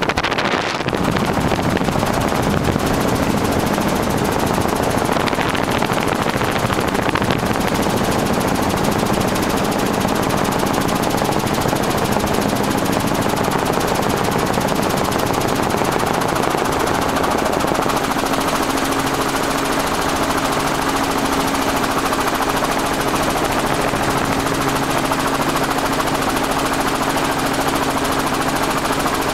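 Helicopter in flight heard from inside the cabin: loud, steady engine and rotor noise with a few steady engine tones.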